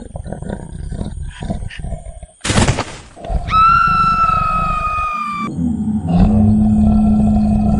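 Dubbed monster-movie dinosaur sound effects: a low rumbling growl, a sudden loud burst about two and a half seconds in, then a high screeching roar of about two seconds, followed by a steady low drone.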